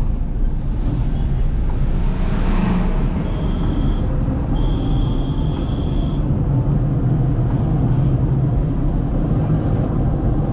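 Steady rumble of riding on the road: wind buffeting the microphone with motorcycle and traffic noise underneath. A whooshing swell about two seconds in, as if a vehicle passes. A thin high steady tone sounds twice, briefly and then for about a second and a half.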